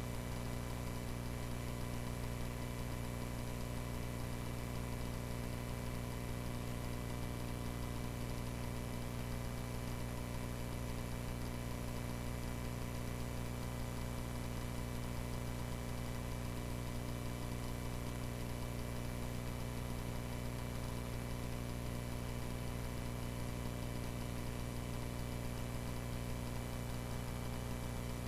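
Cessna 140A's light-aircraft piston engine and propeller running at a steady, unchanging drone.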